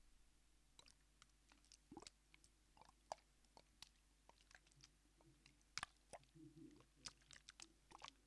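Faint, irregular small clicks and crunchy crackles, like chewing or crunching, with the sharpest clicks a little before halfway and near the end.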